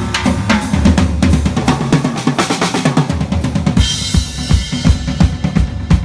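Drum kit played hard and fast during a band sound check: busy bass drum and snare hits, with a cymbal wash that gets brighter about four seconds in.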